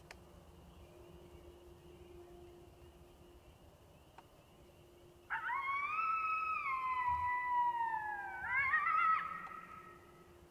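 Coyote howl played through a Lucky Duck electronic predator caller: one long call starting about five seconds in that rises, glides slowly down, then climbs again and breaks off with a wavering finish.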